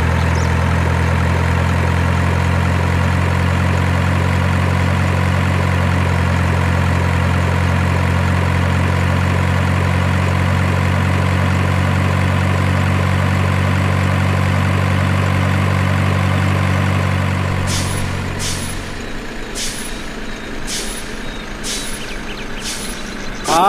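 Heavy truck engine running steadily as a loud, even low drone, which fades out about 18 seconds in. From then on a short sharp hiss repeats roughly once a second.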